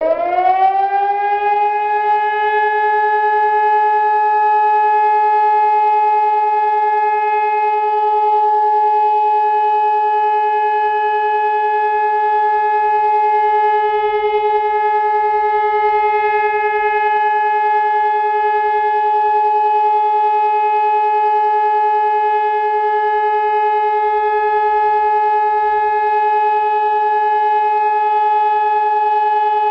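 ECN electronic siren sounding the German all-clear signal (Entwarnung). Its pitch rises over the first two seconds, then it holds one steady, unbroken tone.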